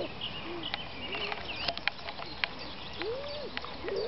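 Birds chirping in short high calls over an open field, with a small child's brief vocal calls and a few sharp clicks.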